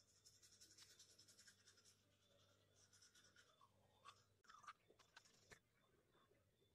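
Faint scrubbing of a toothbrush on teeth: quick, repeated scratchy strokes for the first two seconds or so, then a few shorter spells of brushing.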